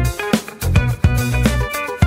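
Upbeat background music with a steady beat: a bass line, drums and plucked guitar-like notes.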